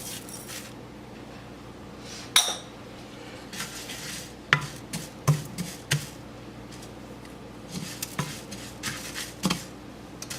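A utensil clinking, knocking and scraping against a pan while rice is stirred as it dry-roasts. The knocks are intermittent, and the loudest comes about two seconds in.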